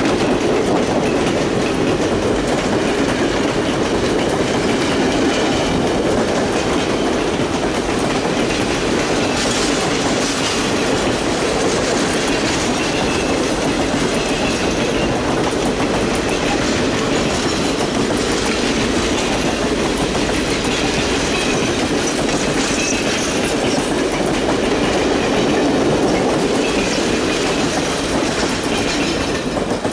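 Passenger coaches of a long excursion train rolling past close by: a steady, loud rumble of steel wheels on rail with clickety-clack over the rail joints.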